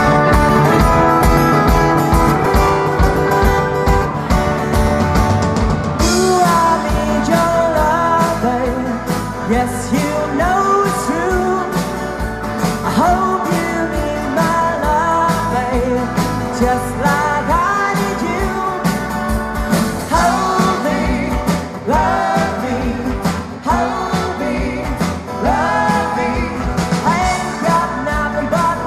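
Live rock band playing: acoustic and electric guitars, keyboard and drums with a steady beat. A male lead vocal comes in about six seconds in and carries on over the band.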